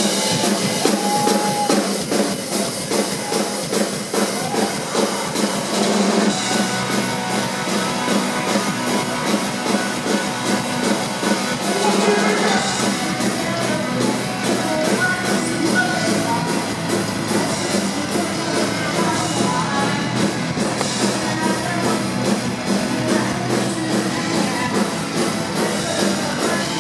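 Live rock band playing loud and steady, with electric guitars, a drum kit and sung vocals.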